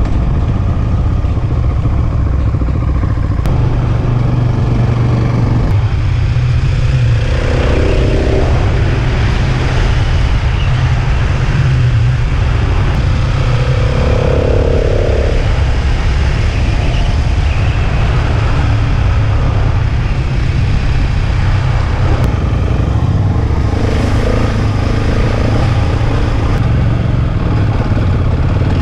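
Dual-sport motorcycle engine running under way at road speed, with wind rushing over the helmet-camera microphone; the engine note shifts up and down a few times.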